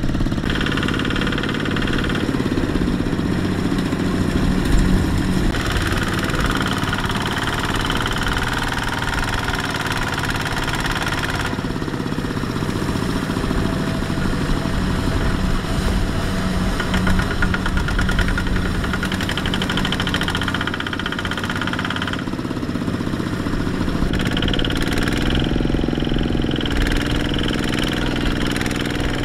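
Kubota RT155 walking tractor's single-cylinder diesel engine running steadily under load as it pulls a trailer of rice sacks through mud. The sound shifts abruptly several times.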